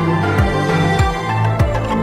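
Background music with a steady beat, a low drum hit about every 0.6 seconds under held notes.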